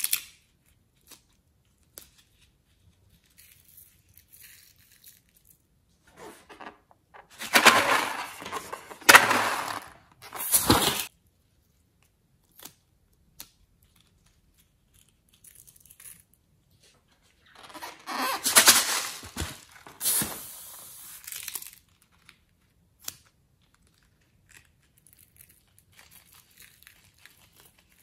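Crinkly rustling as a cut-open balloon and its glitter filling are handled by hand over slime, in two bursts of a few seconds each, with scattered small clicks and taps between.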